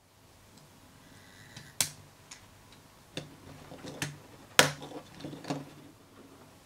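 Small plastic capsule-toy trains being handled and coupled together: a series of sharp plastic clicks and taps, about seven, the loudest about four and a half seconds in.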